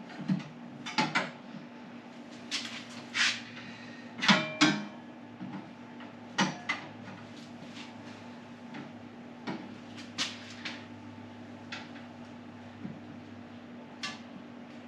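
Irregular metallic clanks and taps from a luggage rack being lined up and fitted onto a motorcycle sissy bar, with the loudest, briefly ringing clank about four seconds in.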